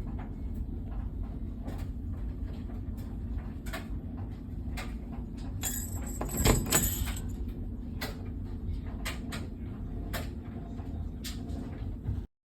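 A door being handled and opened, with a brief jingle of small bells hung on the doorknob about six seconds in, among scattered clicks and knocks over a steady low rumble. The sound cuts off just before the end.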